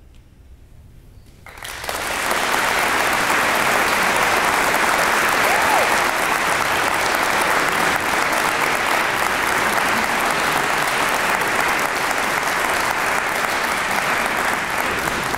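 Audience applauding in a hall, starting suddenly about a second and a half in after near-quiet and then holding steady.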